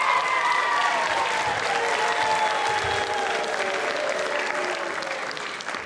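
Applause from the audience and cast, with held cheering voices over it; the applause dies down toward the end.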